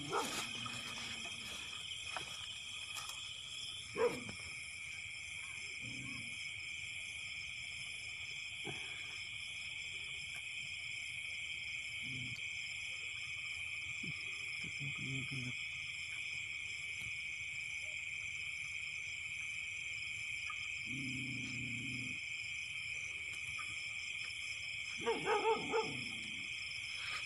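Steady high-pitched chorus of night insects in a grassy field, with a few short, low animal calls scattered through it and a sharp knock about four seconds in.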